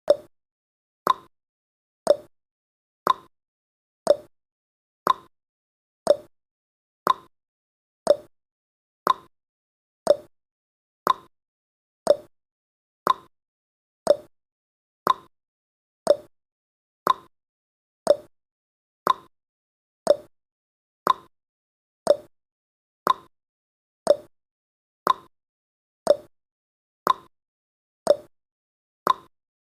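Countdown timer's ticking sound effect: one short, sharp tick every second, alternating between a lower and a higher tick like a clock's tick-tock.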